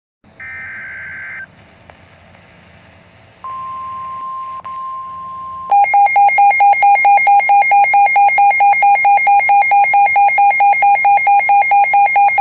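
Emergency Alert System alert tones for a flash flood warning: a short warbling digital header burst, then a steady tone for about two seconds, then a loud pulsing alert tone beeping about five times a second that carries on to the end.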